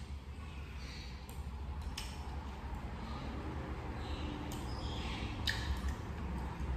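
Eating sounds: chewing, with a few sharp clicks of chopsticks against the bowl, over a steady low hum.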